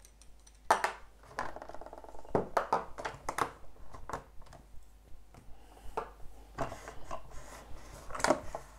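Hard plastic toy parts clicking and knocking in an irregular run as the detachable arms of a Play-Doh Octopus playset are handled, taken off and set down on a tabletop.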